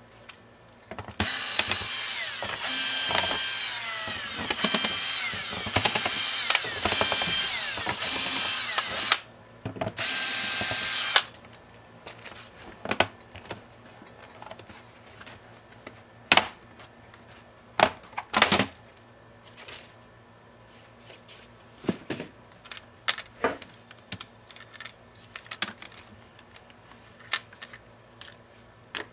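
Small electric screwdriver running in several short runs, its whine rising and falling, as it backs out the bottom-cover screws of a Lenovo ThinkPad E490 laptop, ending about eleven seconds in. After that come scattered sharp clicks and snaps of the plastic bottom cover being pried off its clips.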